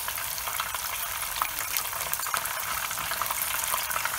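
Very hot oil sizzling and crackling around a turmeric-and-salt-rubbed rohu fish head frying on high heat: a steady hiss dotted with many small pops.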